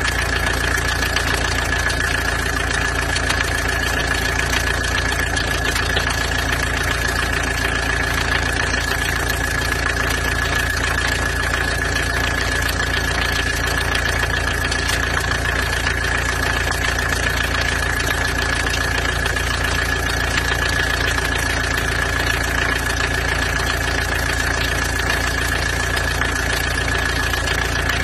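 Peugeot 505 GLD's four-cylinder diesel engine idling steadily, with a constant high whine over the running.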